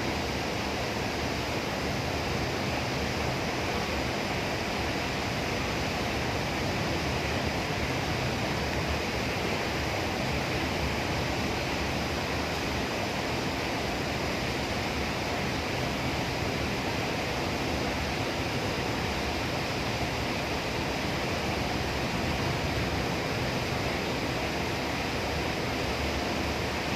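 Hood-type commercial dishwasher running, with a steady, unbroken rush like spraying water.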